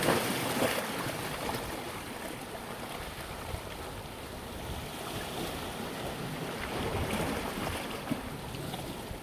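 Sea waves washing onto the shore, surging loudest in the first second and swelling again about seven seconds in.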